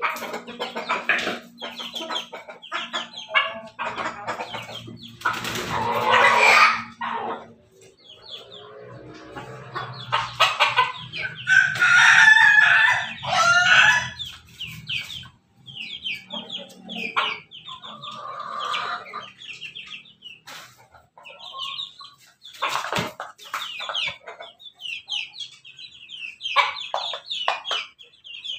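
Domestic roosters crowing amid frequent short clucks and calls from the chickens, with a long wavering crow about ten seconds in.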